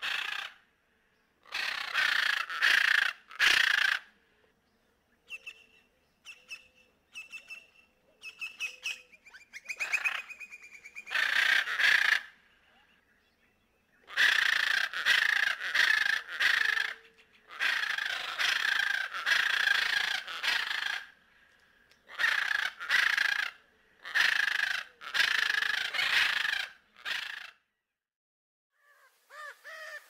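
Parrot squawking in repeated harsh, raspy screeches, each lasting one to three seconds. Between about five and ten seconds in there is a run of short, quieter whistled notes.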